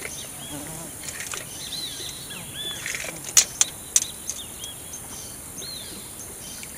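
Birds calling with short, arching chirps repeated again and again, over a steady high-pitched hum, with a few sharp clicks about three and a half and four seconds in.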